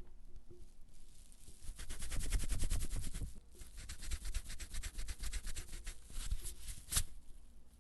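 Rubber pencil eraser rubbing back and forth on paper in rapid strokes, heaviest about two to three seconds in, then lighter, with one sharp tap near the end.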